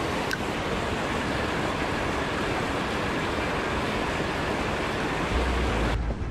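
Water gushing out of a corrugated culvert pipe and splashing into a shallow creek: a steady rushing noise that cuts off abruptly near the end.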